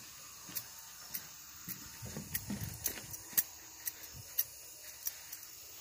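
Faint handling noise from a phone being moved around: scattered light clicks and rustles, with a brief low rumble about two seconds in.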